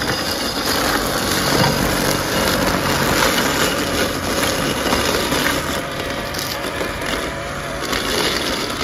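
Worx Landroid robotic lawn mower running along the edge of a concrete path, cutting the grass border with a steady motor hum and the rush of its blade.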